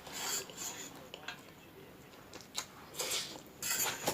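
Close-up mouth sounds of someone eating spicy instant noodles: chewing and wet mouthfuls in short bursts, with a couple of light clicks of cutlery against the bowl.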